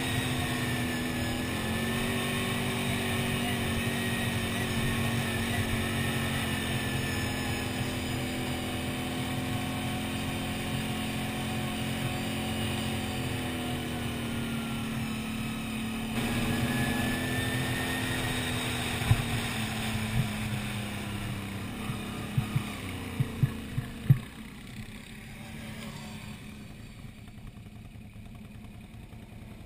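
Quad bike (ATV) engine running under way on a dirt track, its pitch shifting a little with the throttle. A few sharp knocks come over it about two-thirds of the way through, after which the engine sound drops lower and quieter.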